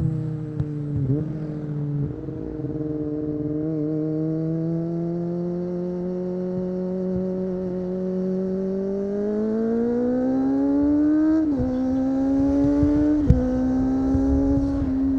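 Kawasaki ZX-25R's 250 cc inline-four with an Akrapovic exhaust, heard onboard: it cruises at a steady engine speed, then accelerates with rising pitch and makes two quick upshifts near the end, the revs dropping sharply at each.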